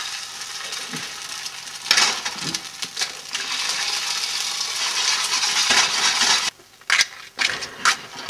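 Eggs being cracked and crushed into a skillet, with crunching and clinking of shell over a steady hiss that cuts off suddenly about six and a half seconds in. A few sharp knocks follow near the end.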